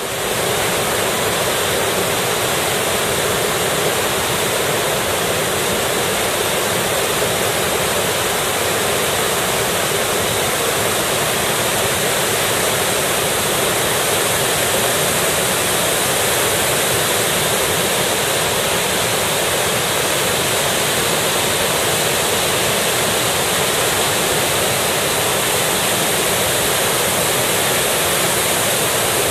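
Waterfall in heavy flow, swollen by typhoon rain, giving a loud, steady rush of falling water.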